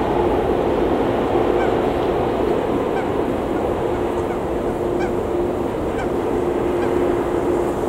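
Boeing 787 jet engines running as the airliner lands: a steady rumble with a humming tone that drops out and returns.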